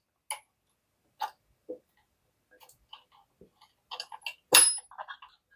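Scattered light metal clicks and taps of hand tools working at a screw on an old steam iron being taken apart, with a cluster of small clicks about four seconds in and one sharper clack just after.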